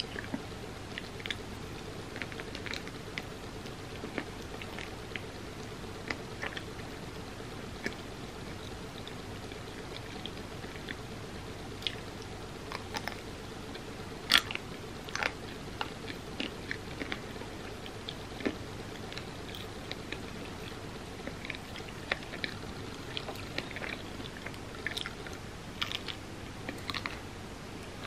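A person eating chocolate-covered sundae toppings: chewing with scattered wet mouth clicks and crunchy bites, the loudest bite about halfway through.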